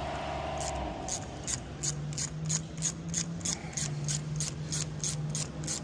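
Ratchet on a thread-tap wrench clicking steadily, about three clicks a second, as the tap is turned back out of a freshly threaded bolt hole in steel.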